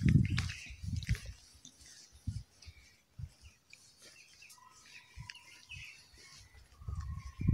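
Birds chirping in short calls, with a thin held note over the second half. Low thumps come in the first second.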